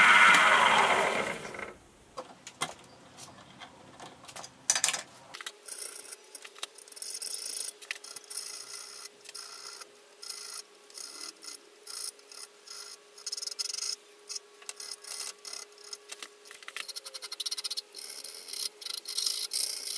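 Hand file rasping across the edges of a steel face mill body in short, irregular strokes, with a faint steady hum underneath from about five seconds in. For the first two seconds the milling machine is still cutting, then it fades out.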